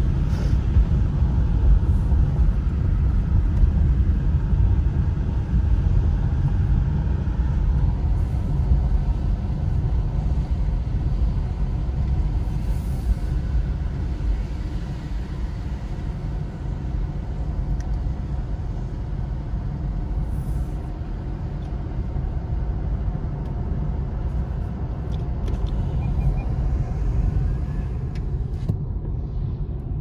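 A car driving, heard from inside the cabin: a steady low rumble of engine, tyre and road noise on wet pavement.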